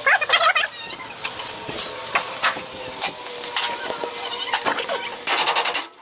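A wrench working on the bumper mounting bolts under a Ford F100: irregular metal clinks and knocks, then a quick run of rapid clicking near the end.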